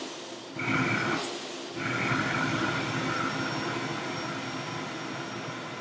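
Vacuum cleaner running with a steady motor whine. The whine drops away briefly twice in the first two seconds, then holds and slowly fades.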